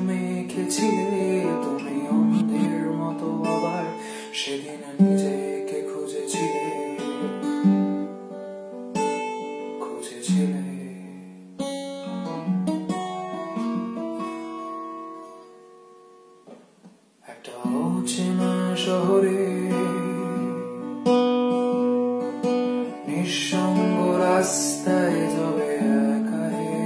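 Acoustic guitar played solo: strummed chords mixed with picked notes. About halfway through, the chords are left to ring and die away almost to silence, then the strumming starts again.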